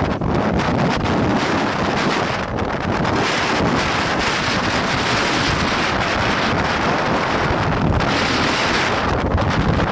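Strong wind buffeting the microphone on the open bow deck of a small car ferry under way, over the wash of choppy sea.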